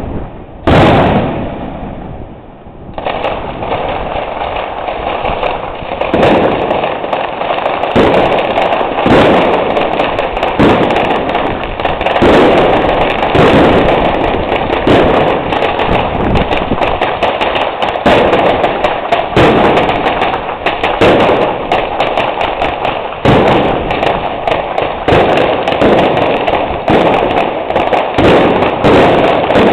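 Aerial fireworks bursting: a single loud bang about a second in, then from about three seconds a dense, unbroken run of bangs and crackles.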